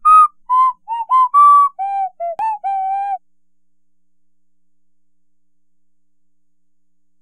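A short tune whistled as a run of separate high notes, some bending slightly in pitch, ending on a longer held note about three seconds in.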